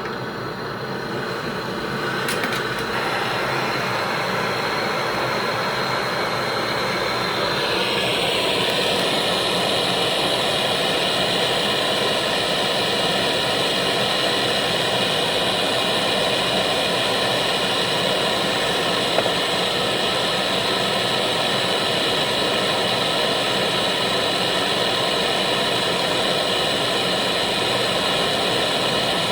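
A motor or engine running steadily with a high whine. The whine rises and grows fuller about seven or eight seconds in, then holds steady.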